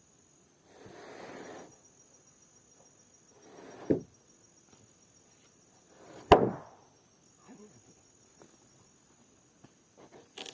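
Two heavy knocks of wood, the louder one about six seconds in, after a short rustling swish about a second in, over a steady high drone of insects.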